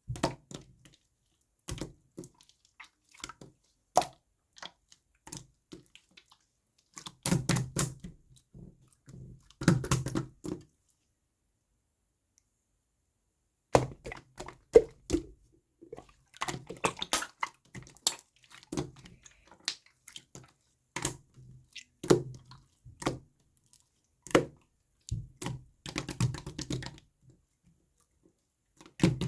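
Slime worked by hand, giving clusters of wet clicking and popping squelches; the sounds stop for about three seconds midway, then resume.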